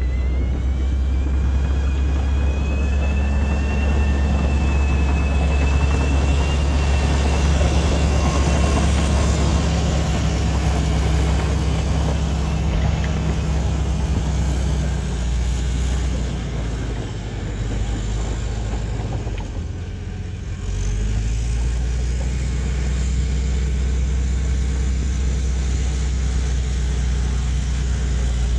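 Caterpillar crawler dozer's diesel engine running steadily under load while it pushes mud, with a high whine rising and holding over the first ten seconds or so. The engine drops quieter for a few seconds past the middle, then picks up again suddenly.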